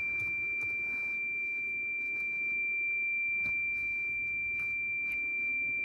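A Toyota Land Cruiser's warning buzzer sounding one steady, unbroken high-pitched tone, with a few faint clicks. The mechanic puts the buzzer down to the ABS fault: brake booster pump motor codes and low accumulator pressure.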